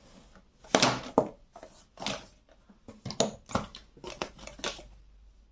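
Foundation bottles being handled and set down among others in a fabric storage box: a string of irregular clicks and knocks as they touch, with some light rustling.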